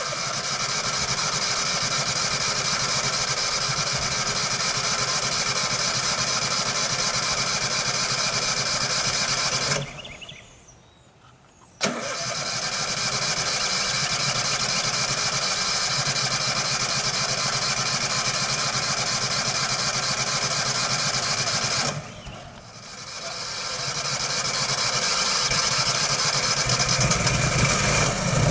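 Briggs and Stratton PowerProtect PP26 standby generator running steadily on its first test run. The sound drops away about ten seconds in and returns with a sharp click, then dips again a little after twenty seconds and builds back up over a few seconds.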